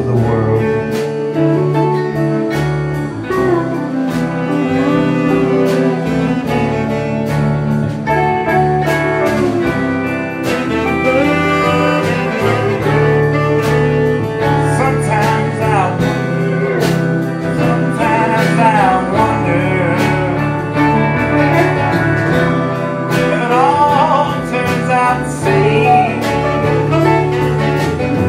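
Live band playing a slow country-soul ballad on archtop and electric guitars, steel guitar, upright bass, drums and saxophone, with sliding notes standing out here and there.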